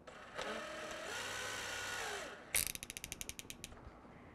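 Milwaukee 18-volt cordless drill running for about two seconds and winding down, then the keyless chuck ratcheting shut in a quick run of about a dozen clicks as it is tightened onto a motor armature's shaft.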